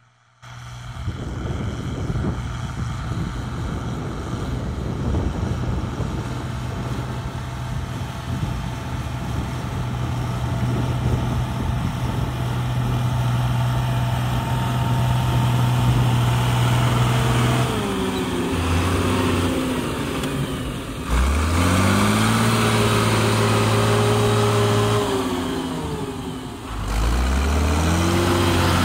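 Fiat Agri 100-90 tractor's six-cylinder diesel engine working under load while disc ploughing, its steady note growing louder as the tractor approaches. In the last ten seconds the engine note drops and rises several times, with sudden jumps in loudness.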